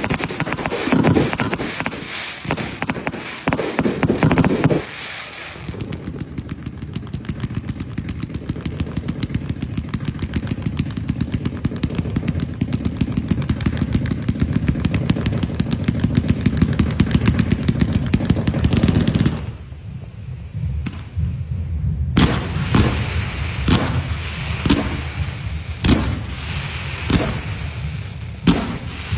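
Firecrackers going off: irregular loud bursts, then a long string of crackers cracking in a fast, even rattle for about fifteen seconds. After a short lull come separate sharp bangs roughly a second apart.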